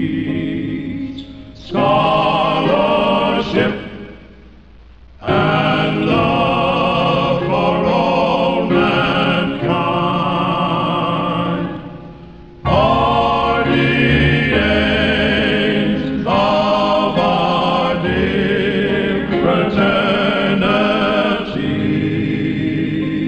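Music with voices singing, choir-like, in long held phrases. It drops away briefly about four seconds in and again about twelve seconds in.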